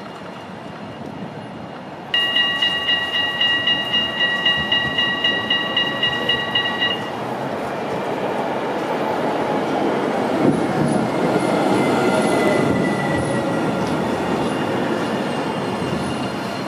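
A warning bell rings rapidly, about three to four strokes a second, starting suddenly about two seconds in and stopping after about five seconds. Then an Alstom Citadis low-floor tram pulls into the stop: its running noise swells to a rumble, with a faint falling whine as it slows.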